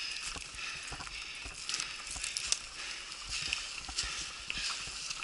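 Mountain bike rolling over a dirt and gravel trail: tyre crunch with a steady hiss, and scattered clicks and knocks from the bike rattling over the rough ground.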